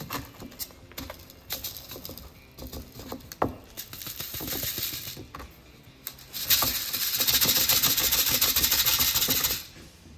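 Paydirt gravel rattling in a gold-prospecting classifier screen set over a gold pan. A few scrapes and clicks come as the screen is handled. Then about three seconds of fast, even shaking rattle sifts the fines through the mesh and cuts off near the end.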